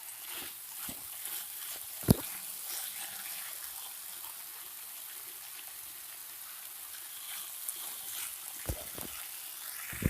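Potatoes and long beans in masala sizzling in an oiled kadhai as they are stirred, with a steady hiss and the spatula knocking against the pan now and then, sharpest about two seconds in.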